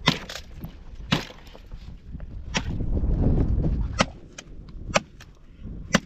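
Dry branches being chopped with a hand blade: sharp, cracking chops about once a second at irregular spacing. Wind rumbles on the microphone, strongest midway.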